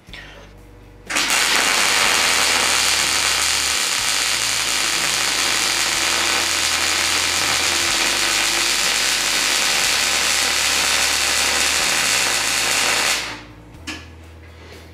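MIG welder arc running a bead on quarter-inch steel plate, a steady crackling hiss. It strikes about a second in and stops shortly before the end, after about twelve seconds of continuous welding.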